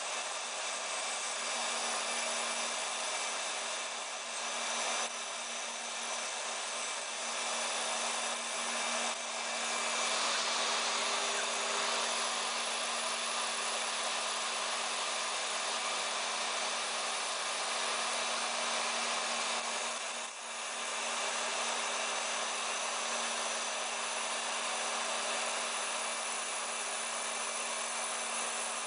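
A small CNC router's spindle runs steadily while its end mill cuts pockets in Depron foam, mixed with the rush of a vacuum-cleaner hose held at the cutter to suck up the foam chips. Together they make an even whirring hiss with a low steady hum, dipping briefly about two-thirds of the way through.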